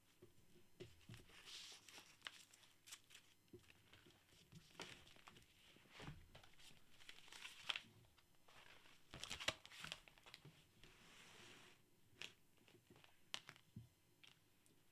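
Faint rustling of notebook paper as handwritten pages are handled and turned, with scattered light taps of a pen on the notebook.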